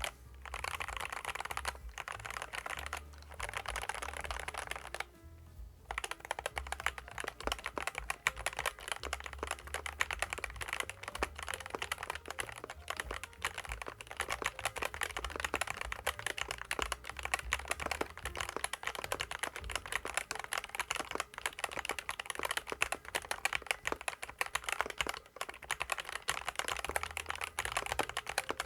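Typing on a SKYLOONG GK75 mechanical keyboard with SKYLOONG optical yellow linear switches and PBT keycaps: a few short bursts of keystrokes with brief pauses in the first six seconds, then fast, continuous typing, over background music.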